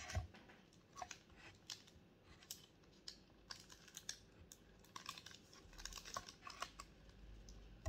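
Faint, scattered clicks and crinkles of hands handling food and its plastic wrapping inside a cardboard takeaway box, at an irregular pace.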